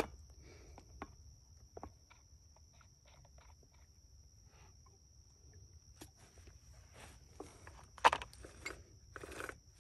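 A Dolmar 5100S chainsaw being rocked by its top handle while its bar is clamped in a stump vise: scattered faint clicks and a sharp knock about eight seconds in. A thin, steady high whine runs underneath.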